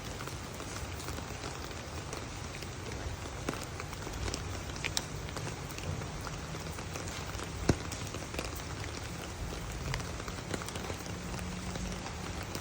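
Steady rain falling, with scattered drops ticking on a surface and one sharper drop a little past the middle.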